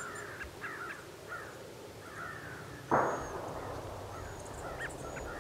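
Crows cawing repeatedly, with one sudden distant gunshot about three seconds in that rolls away over about a second, from shotgun hunting on neighboring land.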